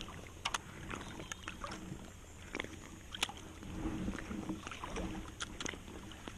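Light water noise around a float tube, with scattered small clicks and knocks, and a louder patch of low rumbling handling noise about four seconds in.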